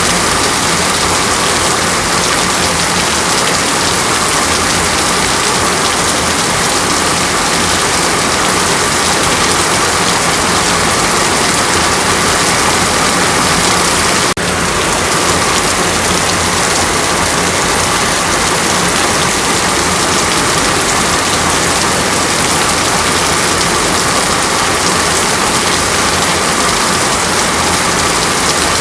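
Heavy rain falling steadily as a loud, dense hiss, with a short break near the middle.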